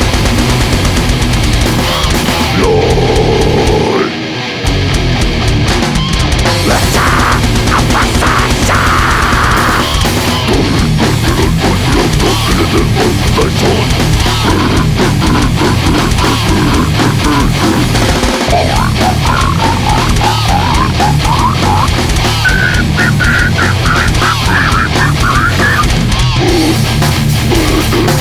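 Loud death metal recording: heavily distorted guitars over fast, dense drumming, with a brief break about four seconds in.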